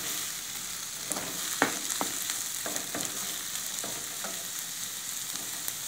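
Cubed green papaya and onion frying in oil in a metal pan, a steady sizzle, while a spatula stirs them, scraping and tapping against the pan several times.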